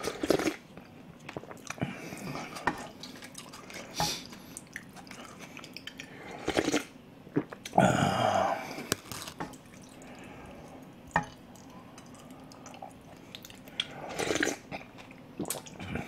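A person slurping spoonfuls of pork soup (dwaeji gukbap) and chewing close to the microphone: irregular wet mouth sounds, a longer slurp about eight seconds in, and a few short clicks.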